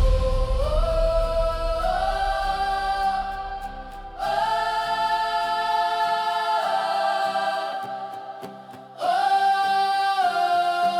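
Wordless choir holding long sustained chords in a hymn interlude between verses, in three held phrases, with new phrases starting about four and nine seconds in and the pitch stepping up and down between them.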